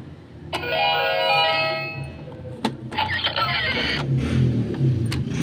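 Electronic toy piggy bank with a keypad playing a short electronic jingle just after its code is keyed in, followed by a few sharp clicks and handling noise.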